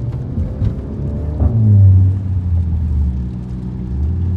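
A car engine running with a low, steady drone, revving up briefly about a second and a half in.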